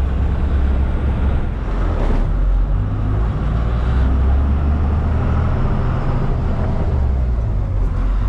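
Tata 1613 container truck's diesel engine droning steadily under way, with road noise, its low hum shifting slightly a few seconds in.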